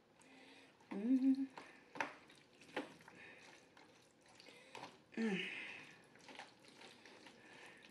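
A fork stirring garlic butter sauce through linguine alfredo in a plastic takeout tray: soft wet squishing of the pasta and a few sharp clicks of the fork against the plastic. Two short hummed vocal sounds, about a second in and again around five seconds in, are the loudest sounds.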